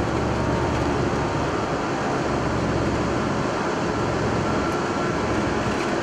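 Airbus A340-300 flight deck noise during takeoff rotation: a steady rush of airflow and engine noise at takeoff thrust, with a low rumble from the runway that dies away between about two and three seconds in as the airliner lifts off.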